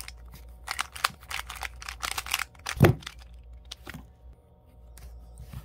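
A plastic 3x3 speed cube's layers being turned quickly by hand: a rapid run of clicks and clacks, then one louder thump near the middle, with a few scattered clicks after it.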